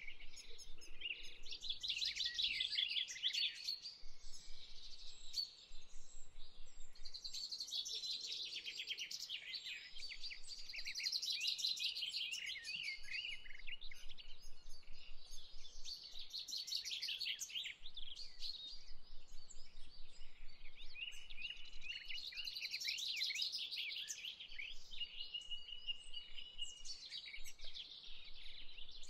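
Many birds chirping together, a dense chorus of rapid, high-pitched calls, with a couple of short held whistling notes in the second half.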